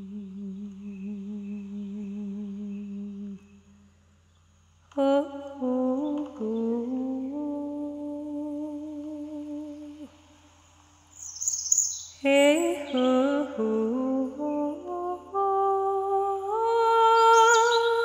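A voice humming a slow, wordless melody with vibrato: one long held note that stops about three seconds in, a short pause, then two gliding phrases of stepped notes. A few high bird chirps come in over the humming near the end.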